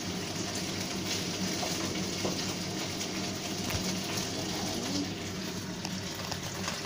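Marinated pork pieces sizzling in hot oil in a wok, a steady frying hiss, with a steady low hum underneath.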